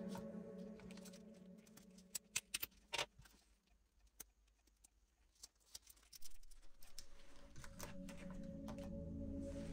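A quick cluster of sharp clicks two to three seconds in, then a few scattered single clicks, from hands handling the laptop's memory modules and parts. Quiet background music dips away at first and comes back after about six seconds.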